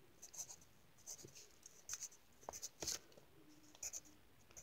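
Pencil scratching faintly on lined notebook paper in short, separate strokes, about half a dozen of them, as small curved scale marks are drawn.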